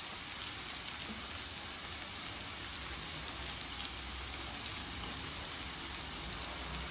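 Finely chopped onion frying in hot oil in a non-stick pan: a steady sizzle with many fine crackles, the onion at the stage of being fried toward light brown.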